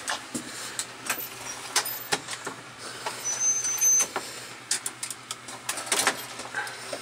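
Scattered clicks and knocks over a low steady hum, with a brief thin high whistle about three seconds in.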